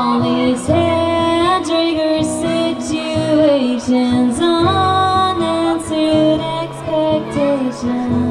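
Live music: a woman singing to her own acoustic guitar strumming, amplified through a PA, with the melody rising and falling in long held notes.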